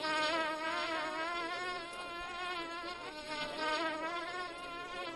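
A fly buzzing steadily, its drone wavering slightly in pitch.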